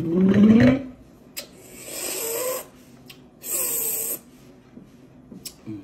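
A man making wordless vocal noises: a short hum through closed lips that rises in pitch, then two long breathy exhalations with a faint voiced tone in them.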